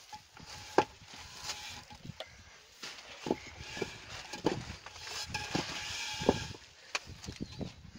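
Aerated concrete blocks being lifted off a pallet stack and knocked against one another, a string of irregular hollow knocks and scrapes.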